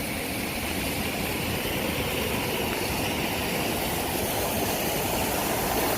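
Steady rushing of water from a waterfall.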